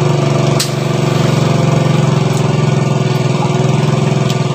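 Small engine running steadily at a constant speed, with a brief click about half a second in.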